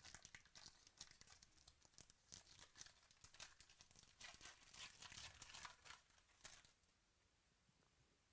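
Faint crinkling and tearing of a trading-card pack wrapper being opened, with cards rustling in hand; the crackle stops near the end.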